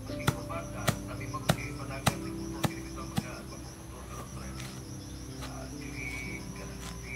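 Knife chopping on a cutting board: six sharp strokes at an even pace, a little under two a second, stopping about three seconds in. Crickets chirp steadily behind it.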